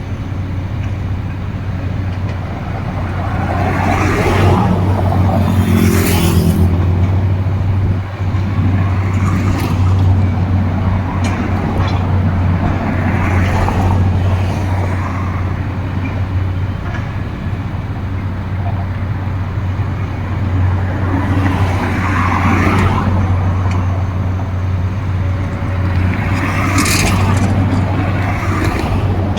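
Excavator diesel engine running steadily with a low hum, swelling louder several times as it works.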